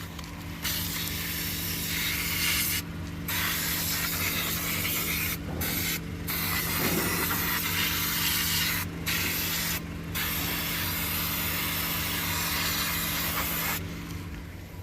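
Aerosol brake parts cleaner sprayed in about six long hissing bursts with short breaks between them, onto a Toyota Camry's brake caliper and pads to clean off the cause of brake squeal. A steady low hum runs underneath.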